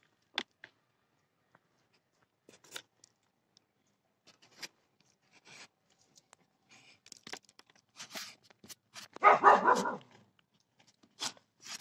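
Soft, scattered crackles and rustles of hands pressing potting soil around clumps of horsetail reed in a styrofoam planter. About nine seconds in, a dog barks for about a second, louder than anything else.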